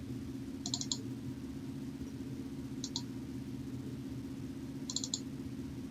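Computer keys or mouse buttons clicking in short runs of two to four quick clicks, about a second in, near three seconds and near five seconds. A steady low electrical hum runs underneath.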